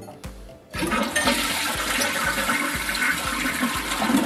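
Briggs Vacuity 4400 vacuum-assist toilet flushing: a sudden loud rush of water begins under a second in and keeps going. The flush works properly again, a sign that the newly replaced tank seals are holding the vacuum chamber's charge.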